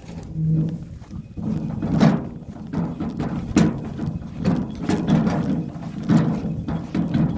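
Footsteps walking over the ground: an uneven series of thuds with rustling between them.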